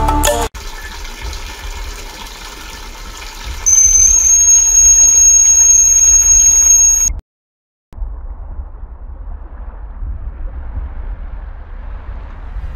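Water pouring into a plastic bucket. About four seconds in, a home-made water level alarm's piezo buzzer sounds a loud, steady, high-pitched tone as the rising water reaches the float sensor, then cuts off abruptly about three seconds later.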